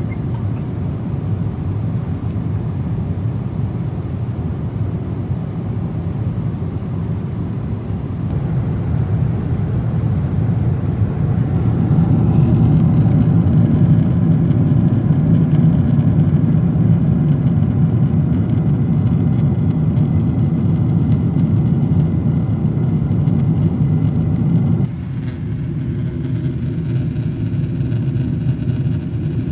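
Steady low roar of a jet airliner's cabin in flight, engine and airflow noise heard from a window seat. Its loudness shifts abruptly a few times.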